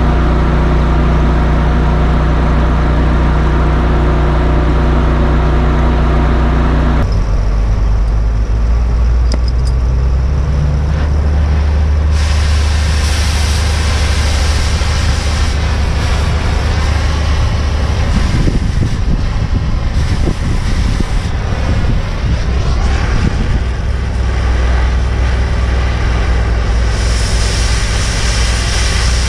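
An engine runs steadily with a low rumble. From about twelve seconds in, the hiss of an oxy-fuel cutting torch joins it, turning sharper and brighter near the end as the torch cuts into the excavator's steel boom.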